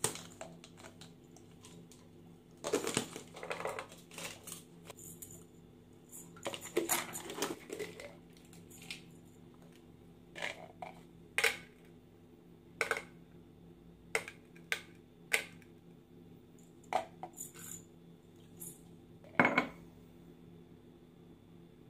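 Plastic pill bottles being handled: tablets rattling inside and caps clicking, as short clattery rattles early on and a string of separate sharp clicks later, with quiet gaps between.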